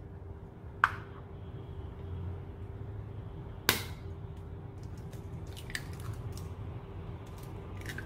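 An egg knocked sharply against the rim of a square egg pan, twice a few seconds apart, the second knock the louder, then lighter clicks of shell as it is broken open into the pan. A low steady hum runs underneath.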